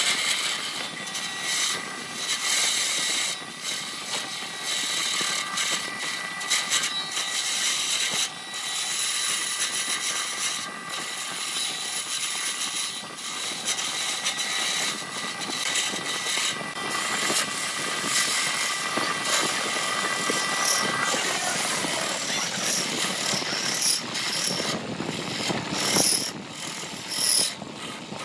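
Wood lathe running while a hand-held turning tool cuts into a spinning blank of wood and blue resin. A rough, scraping cutting noise sits over a steady motor whine, and the whine drops away about twenty seconds in.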